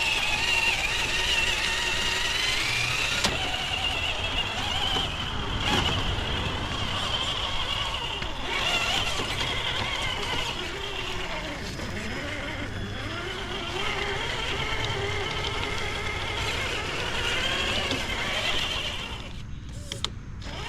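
Traxxas TRX4 RC crawler's electric motor and geared transmission whining as it drives in high gear, the pitch wavering with the throttle, with a few sharp clicks along the way. The whine cuts out briefly near the end.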